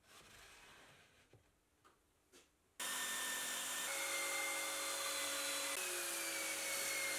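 Soft handling of wooden parts, then a belt sander, clamped upside down as a bench sander, running steadily with a whine as a plywood piece is pressed against the belt. It starts abruptly about three seconds in, and its pitch sags slightly near the end.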